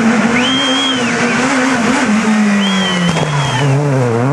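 Skoda Fabia S2000 rally car's 2.0-litre naturally aspirated four-cylinder engine running hard at high revs. Its note sinks over the second half as the car slows, then rises sharply again near the end.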